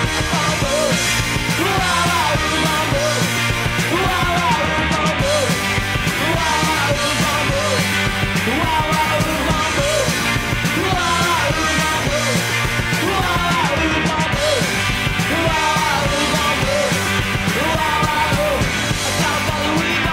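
Background music: a full, steady music track with gliding melodic lines, playing without a break.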